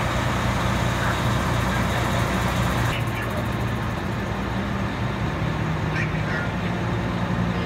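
Fire truck engines running steadily at the scene, a low even hum over outdoor noise.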